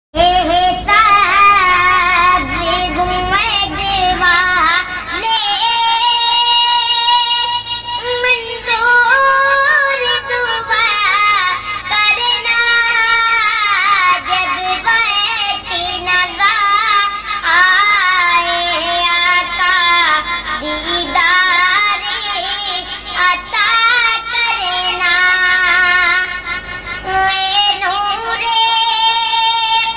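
A boy singing an Urdu naat solo, with long, ornamented melodic lines that waver and glide in pitch.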